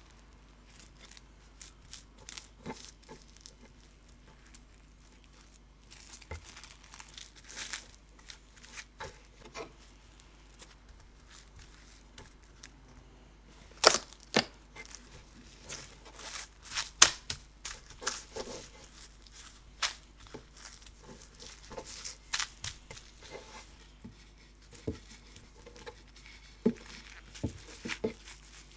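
Plastic cling film crinkling and crackling as it is pulled and wrapped tightly around a log of cookie dough on a wooden board, in many irregular sharp crackles that grow denser and louder about halfway through.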